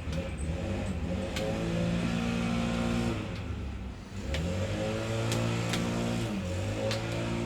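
An engine revving up, easing off about three to four seconds in, then revving up again, with a few sharp clicks of handling over it.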